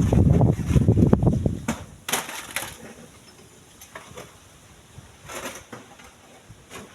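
Strong gusty wind buffeting the microphone, with low rumbling thumps that die down about two seconds in. A few faint rustles and clicks follow in the lull.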